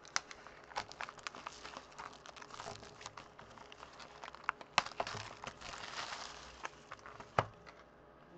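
Clear plastic shrink wrap being torn and peeled off a sealed trading-card box, crinkling steadily with sharp crackles and snaps. Two snaps, about five seconds in and near the end, are louder than the rest.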